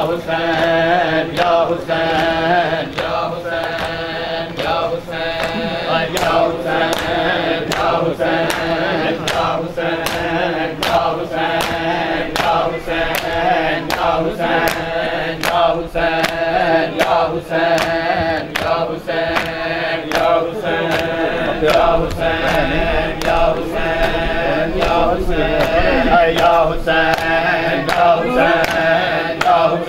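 Group of male mourners chanting a noha in unison, over a steady beat of sharp slaps of open hands on bare chests (matam).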